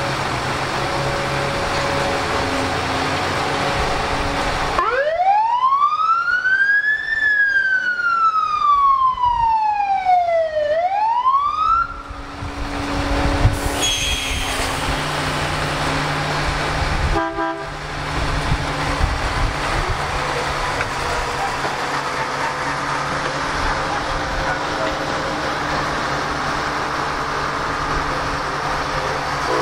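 A siren wails once, its pitch rising, falling and starting to rise again before it cuts off, over a steady low drone of idling engines and traffic.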